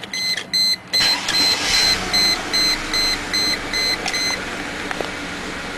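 Mercedes E320's dashboard warning chime beeping quickly and evenly, stopping about four seconds in, while about a second in the engine starts and settles into a steady idle. The owner says the engine misfires on all cylinders.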